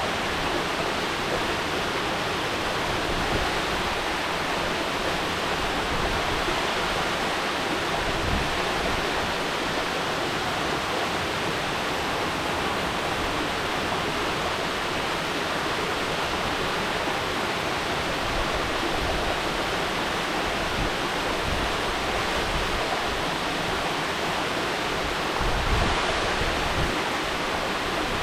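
Mountain waterfall rushing steadily, a dense even roar of falling water. A few brief low rumbles come through it, the strongest near the end.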